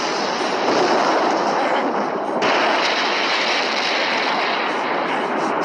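Anime sound effects of a loud, steady rumbling roar of crackling energy, a power-up as the fighter's rage builds. A higher hiss joins about two and a half seconds in.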